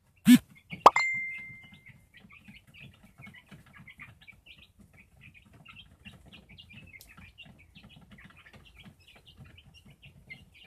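Young Rhode Island Red and Golden Comet chickens peeping and clucking softly in many short calls. Near the start there is a loud knock, then a sharp clang that rings on for about a second.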